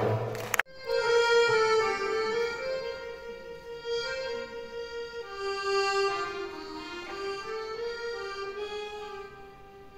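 Accordion playing a slow solo melody of long held notes, growing quieter toward the end. It comes in right after a louder passage of music cuts off abruptly about half a second in.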